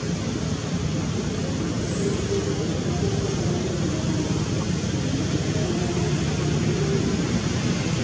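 Steady rushing outdoor background noise with no distinct events, and a few faint short tones now and then.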